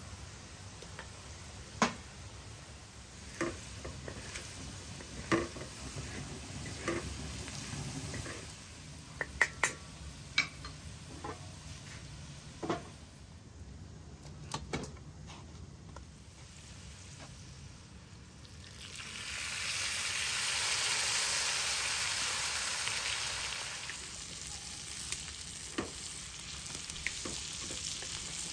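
Spoon clicking and scraping against an iron sadj (domed griddle-pan) over a campfire. About 19 s in, food going into the hot oil sets off a loud sizzle that swells and fades over a few seconds, then stirring resumes with a few clicks as chicken, onions and potatoes fry.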